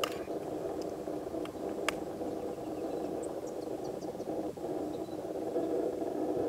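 A steady low droning hum with a few faint sharp clicks and high ticks over it.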